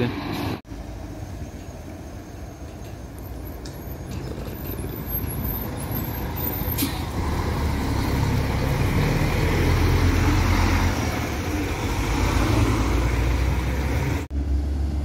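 Bus passing close by, its engine rumble and tyre noise growing louder over several seconds and peaking about two-thirds of the way through before easing slightly.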